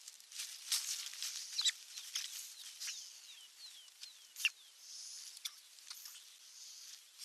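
High-pitched bird calls: a run of short, quick, falling chirps in the middle, among scattered sharp clicks and squeaks.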